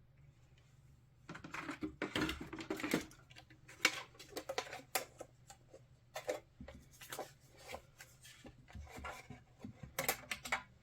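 Craft supplies and paper being handled on a work table: irregular clicks, taps and short rustles, starting about a second in.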